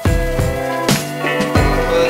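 Background music with a steady drum beat over bass and sustained chords.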